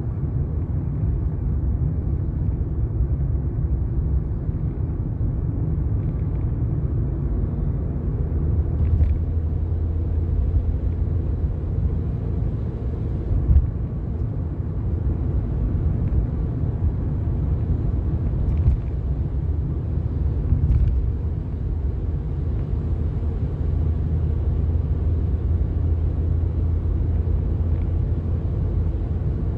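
Steady engine and road rumble inside a moving car's cabin, with a low drone that swells for a few seconds at a time and a few faint clicks or knocks.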